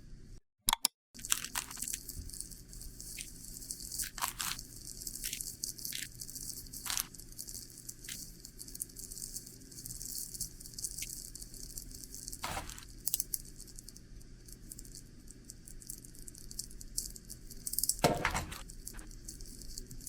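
Rustling, crinkling and light clicks of things being handled close up, irregular throughout, with a louder burst of crackling near the end.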